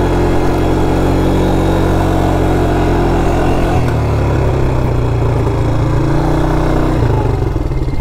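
Polaris quad bike's engine running under throttle, its pitch dropping about four seconds in and again about seven seconds in as the quad slows.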